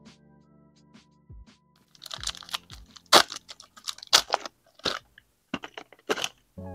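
Card-pack wrapper crinkling in quick, irregular crackles as it is handled, from about two seconds in until shortly before the end, over faint background music.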